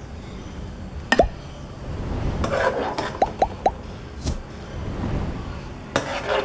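A metal ladle clinking against a pan and a glass baking dish while scooping and spooning creamy sausage sauce. Three quick wet plops come midway as the sauce drops, and there are a few sharp clinks.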